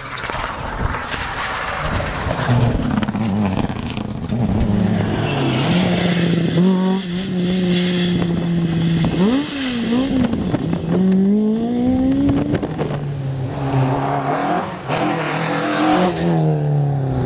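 Rally car engine at full throttle on a stage, revs climbing through several upshifts, holding steady, then a quick drop and throttle blips around the middle before climbing through the gears again and falling away near the end, over tyre and road noise.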